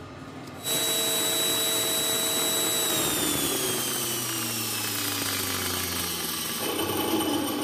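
Angle grinder driving a circular saw blade in a homemade table saw, switched on with a sudden start into a steady high whine. About two seconds later the whine slides down in pitch and fades as the blade spins down with the power off.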